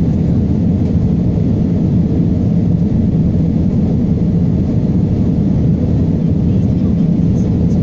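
Steady, deep cabin roar of an Airbus A320 in flight, heard from inside the cabin by a window over the wing: engine and airflow noise running evenly throughout.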